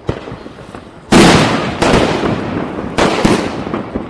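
Diwali firecrackers bursting: about five sharp bangs at uneven intervals, the loudest about a second in, each trailing off in a reverberating tail.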